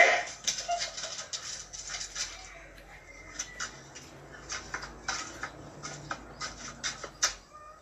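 Irregular scuffling clicks and patters of a dog and a large rat scrambling about on a concrete floor, with a sudden loud sound at the very start.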